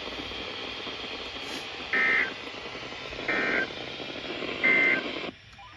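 Three short bursts of EAS/SAME digital data tones, a little over a second apart, over radio hiss: the end-of-message code that closes a weather-radio special marine warning. The hiss cuts off shortly after the third burst.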